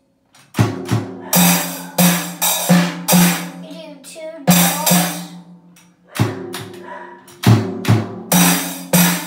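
Junior drum kit (Mendini by Cecilio) played by a beginner: a simple, uneven beat of bass drum, snare and hi-hat strikes about every half second, with a couple of short gaps, the drums ringing after each hit.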